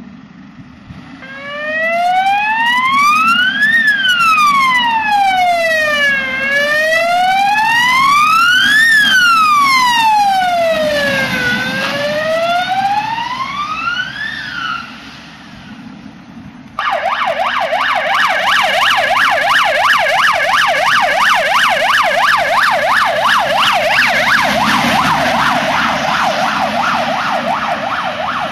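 Renault Master ambulance siren sounding a slow wail that rises and falls about every five seconds. After a brief break around fifteen seconds in, it switches to a fast yelp of several quick sweeps a second.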